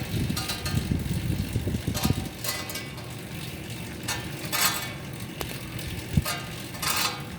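Titan fan bike being pedaled: a steady low rumble from the fan and drive, with a noisy rasp that comes back in short bursts every second or two and a single knock about six seconds in. The bike is new out of the box, so the noise points to a fault in the machine.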